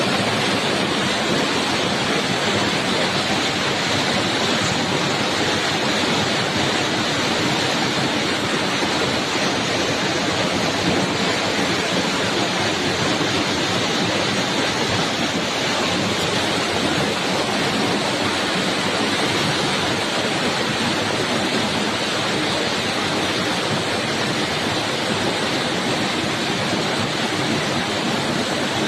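Steady, dense storm noise: an even hiss with no breaks during a rain, hail and windstorm.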